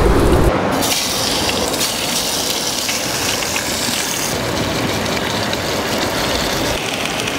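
Fish fillets frying in a pan, a steady sizzling hiss with fine crackle. A heavier low rumble cuts off about half a second in.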